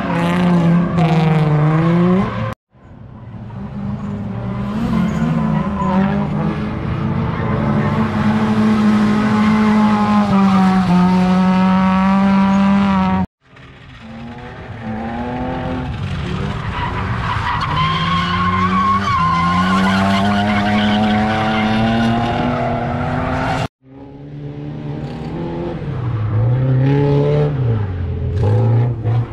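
Drift cars' engines held at high revs, the engine note rising and falling as the driver works the throttle, over tyres squealing and skidding. The sound cuts out abruptly three times as one clip ends and the next begins.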